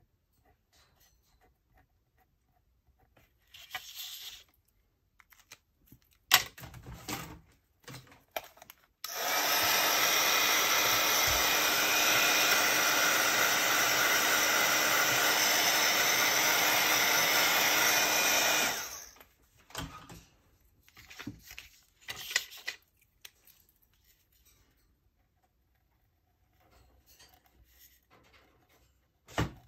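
A handheld hot-air blower of the hair-dryer or craft heat-tool kind switches on about nine seconds in, runs steadily for about ten seconds, then cuts off. Small clicks and handling noises come before and after, with a sharp click about six seconds in and another near the end.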